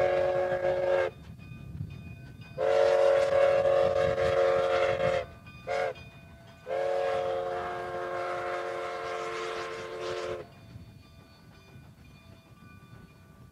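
Steam whistle of Cumbres & Toltec K-36 locomotive 484 blowing for a road crossing. One blast ends about a second in, then come a long blast, a short toot and a final long blast: the long-long-short-long grade-crossing signal. After that only the low rumble and rail clatter of the passing train remain.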